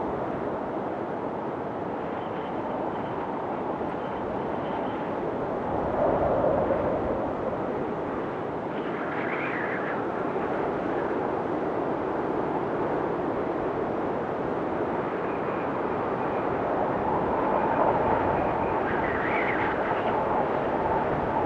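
Blizzard wind blowing steadily, swelling in gusts about six seconds in and again near the end, with faint whistling tones that rise and fall.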